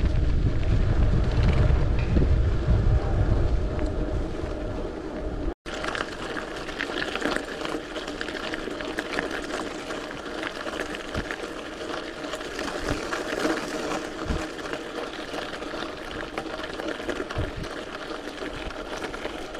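Mountain bike rolling over brick pavers with a heavy low rumble. After a sudden cut about five seconds in, the tyres crunch over a loose gravel track with many small clicks and crackles.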